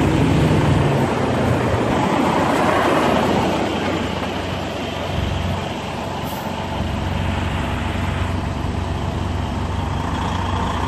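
Semi-truck's diesel engine running steadily at low revs during slow backing manoeuvres.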